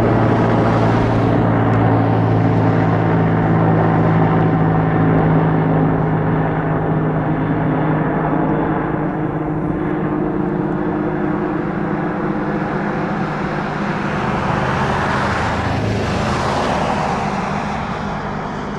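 Helicopter flying low overhead and moving away: a steady engine and rotor drone with strong low tones, fading gradually toward the end.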